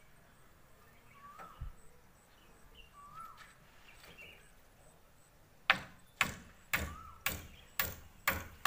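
A run of six sharp hammer blows, about two a second, beginning about two-thirds of the way in. Before and between them a bird repeats a short chirp that rises and falls.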